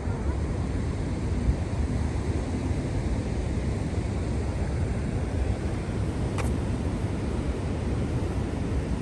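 Outdoor wind buffeting the microphone as a steady low rumbling noise, with one short click about six and a half seconds in.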